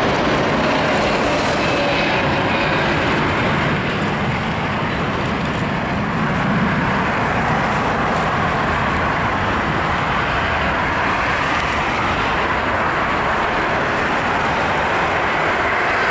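Boeing 777-200 airliner's twin jet engines on landing: a steady, loud rush of jet noise. A faint falling whine sounds in the first few seconds as the plane passes.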